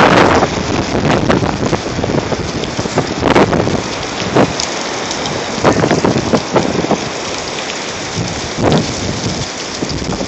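Strong wind gusting against a phone's microphone: a loud, rushing noise with repeated sudden surges every second or two.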